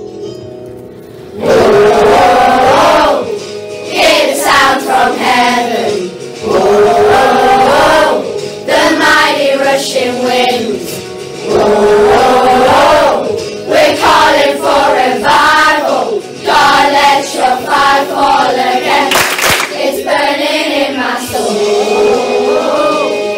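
A group of children singing a worship song together with musical accompaniment, in phrases a few seconds long. The singing comes in loudly about a second and a half in, after a quieter start.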